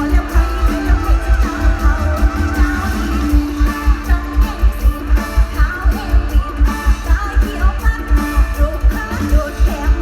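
Mor lam band music played loud through a concert sound system: a fast, heavy bass-drum beat under wavering plucked-string and melody lines.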